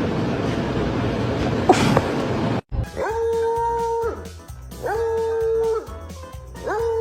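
A dog howling three times, each a long held note that rises at the start, over background music with a steady low beat. Before the howls, about two and a half seconds of steady rushing noise that cuts off abruptly.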